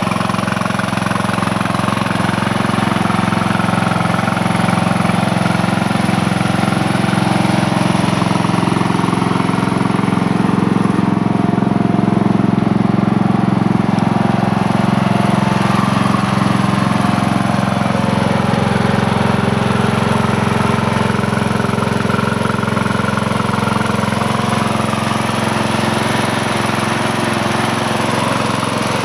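The engine of a Troy-Bilt 17 HP riding lawn mower running steadily at an even speed.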